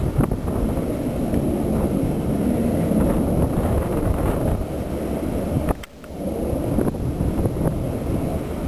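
Approaching diesel freight train, its Canadian Pacific locomotive giving a low, steady rumble mixed with wind buffeting the microphone. The sound briefly drops out about six seconds in.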